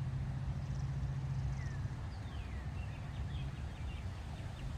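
Open-air ambience: a steady low rumble with a low hum that stops about two seconds in, and a few faint falling bird chirps.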